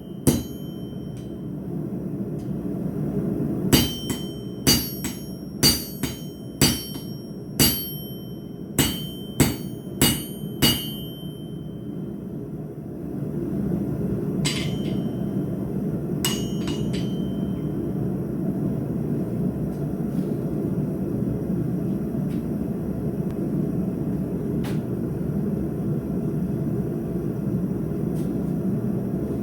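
Blacksmith's hammer striking steel on an anvil: about nine ringing blows roughly a second apart, forging the stang. A few seconds after the blows stop, a steady low rushing noise grows louder and carries on, broken by a few single clanks.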